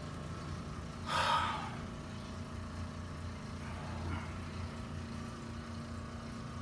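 A steady low mechanical hum, with a short rustling noise about a second in.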